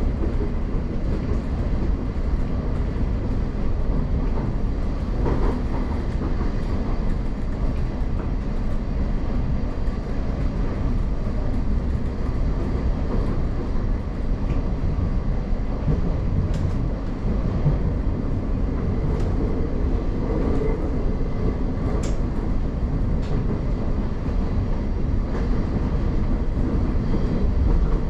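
Class 717 electric multiple unit running in tunnel, heard from inside the carriage: a steady low rumble of wheels on rail, with a few faint clicks and rattles in the second half.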